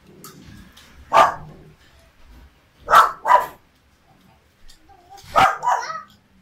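A dog barking: one bark, then two quick pairs of barks.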